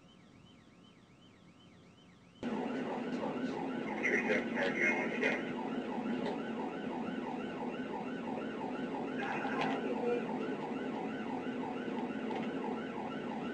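Police car siren on a fast yelp, rising and falling about three to four times a second, heard from inside a pursuing cruiser with engine and road noise underneath. It is faint at first, then becomes abruptly much louder about two and a half seconds in.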